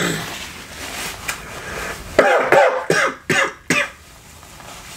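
A man coughing, about four coughs in quick succession some two seconds in: a bite of food has gone down the wrong pipe.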